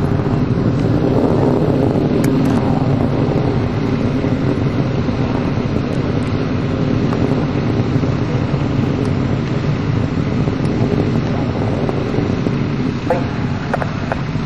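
Delta II rocket's engines during ascent, a steady low rumble heard from far off.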